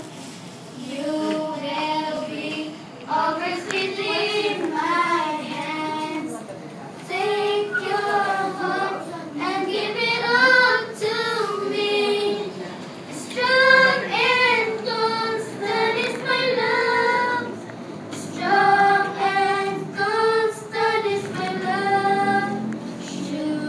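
High voices singing a slow melody, with sustained notes and short breaths between phrases.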